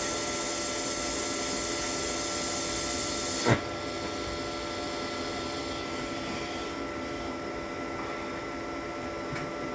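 TIG welding arc from a Toolion MIG-180 Pro, fusing two pieces of metal without filler, running with a steady hiss and hum, then cutting off with a sharp pop about three and a half seconds in. A softer steady hiss carries on after it.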